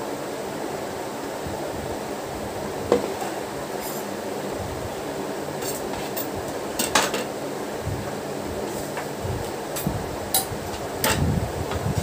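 A few scattered clinks and knocks of a spatula and a metal palette knife against a glass mixing bowl of whipped cream, spaced seconds apart, over a steady background hum.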